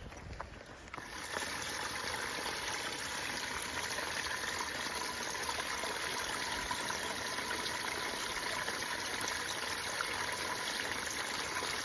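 A small brook spilling in a narrow cascade between mossy boulders onto rocks: a steady trickling and splashing of water that starts about a second in.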